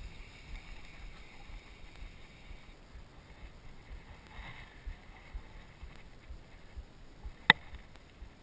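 Faint wind and water sounds from a small boat on open water, with low rumbles of handling. About seven and a half seconds in there is a single sharp click or tap.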